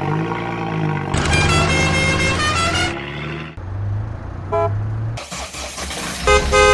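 Vehicle sound effects: an engine drone that rises and falls in pitch, then a lower steady engine hum, with short horn toots in the middle and a couple more near the end.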